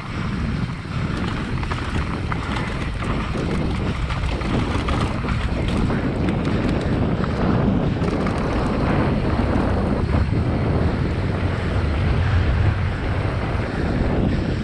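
Wind rushing over a helmet camera's microphone as a mountain bike rolls fast down a dirt trail, with the tyres running over the ground.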